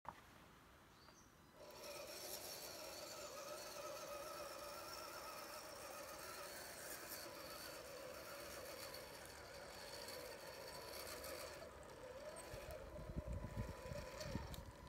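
RC4WD Trail Finder 2 scale crawler's electric motor and gearbox whining steadily as the truck drives, starting about two seconds in. Near the end the pitch wavers and low thumps come in as it nears.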